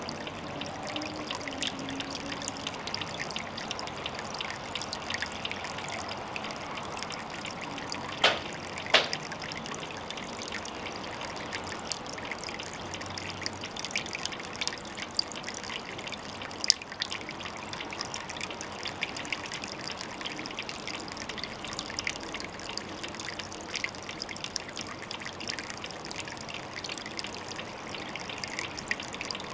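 Water trickling steadily at a pond, with many small drips and splashes scattered through it and two sharper clicks about eight and nine seconds in.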